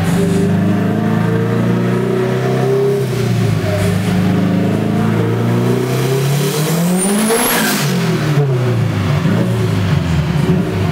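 Turbocharged Honda S2000 engine making a dyno pull. It runs steadily at first, then revs climb for about four seconds to a peak about seven seconds in, where a thin high whistle rises and a burst of hiss comes in. The revs then fall away and settle steady again near the end.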